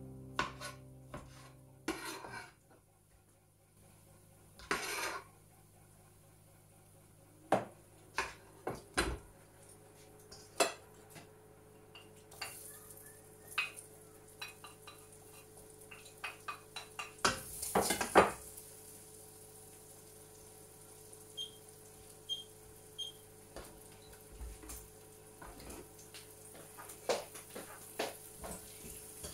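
Kitchenware clatter: a frying pan, plate and utensils knocked and scraped at irregular intervals, with the loudest clatter about 18 seconds in, over a faint steady hum.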